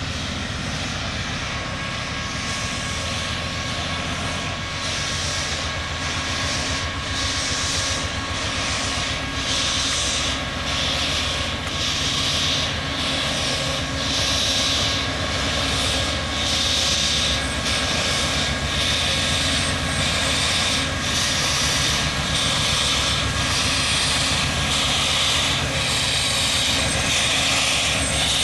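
Milwaukee Road 261, a 4-8-4 steam locomotive, pulling away slowly: its exhaust chuffs come steadily, about one and a half a second, quickening a little and growing louder as it nears, over a low rumble.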